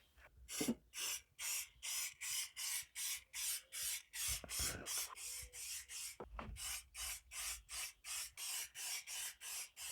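Rhythmic back-and-forth rubbing strokes, about three a second, as rust-stop primer is worked onto the bare steel floor pan.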